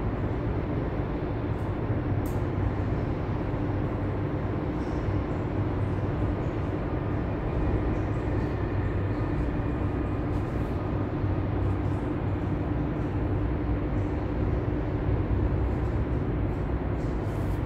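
Steady machinery running with a constant low hum, unchanging in level and without any rhythm.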